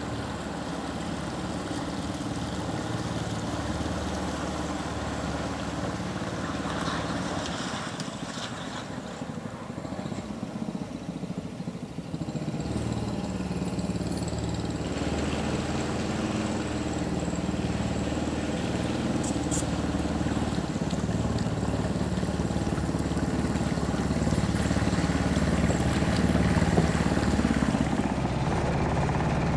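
Small gas engine of a Mokai jet kayak running steadily, easing off about eight seconds in and picking up again about four seconds later.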